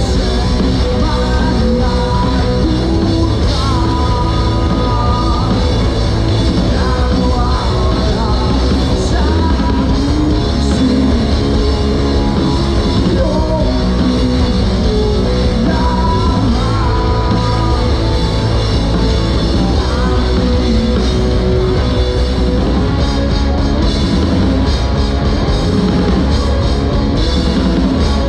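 Rock band playing live: a singer over electric guitars, bass and drum kit, loud and continuous.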